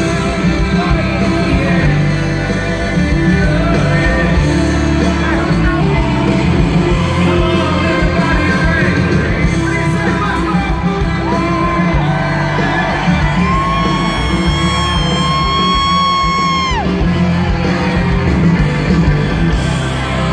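Live country rock band playing in a stadium, with singing and the crowd cheering and yelling, heard on a phone held in the audience. About two-thirds of the way through, a long note is held for about three seconds.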